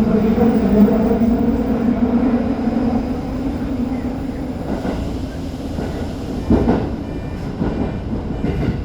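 Tokyo Metro 05 series subway train running: the traction motors' steady hum fades out after about three seconds, leaving wheel and rail noise with a few knocks over the rail joints near the end.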